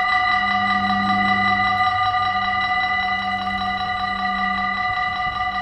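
Dutch level-crossing warning bells ringing in rapid, even strokes, a steady chord of several bright tones, as the crossing's barriers come down. A low hum runs underneath and breaks off about five seconds in.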